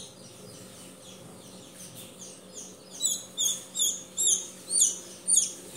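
Newly hatched chick peeping: faint at first, then from about three seconds in a run of loud, high peeps, each falling in pitch, two to three a second.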